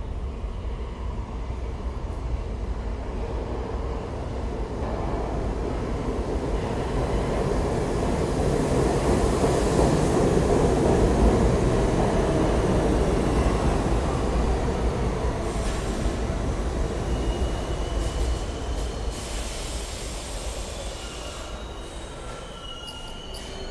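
An R68-series New York subway train pulls into the station. Its rumble grows to a peak as the cars run past the platform, then eases as the train slows to a stop, with high squeals in the last several seconds.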